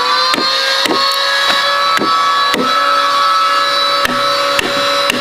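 A steel wood chisel being struck into a wooden beam to cut out a notch: a run of sharp knocks, about two a second, with wood splintering away. A steady high tone sounds underneath.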